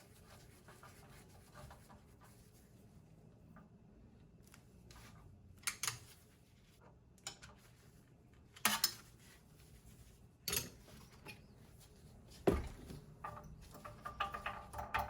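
Scattered clinks and knocks of metal machine parts and a screwdriver being handled during reassembly, with faint rubbing between them; the loudest is a dull thump about three quarters of the way in, and a run of small quick clicks follows near the end.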